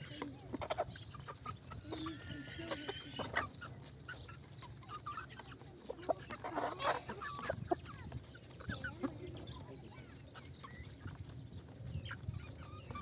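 Domestic chickens clucking, with short calls scattered through, some overlapping, and a few sharp clicks.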